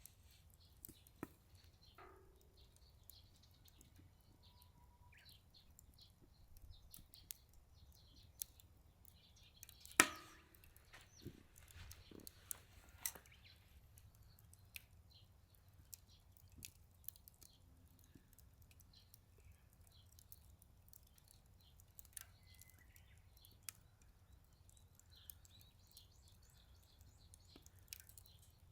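Wood fire crackling in a Solo Stove Ranger fire pit: scattered faint snaps and pops, with one sharp, much louder pop about ten seconds in.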